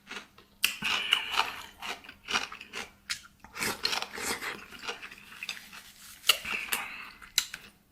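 Eating sounds: a spoon clinking and scraping against a bowl of wontons in soup, with chewing in between, as a string of short irregular clicks.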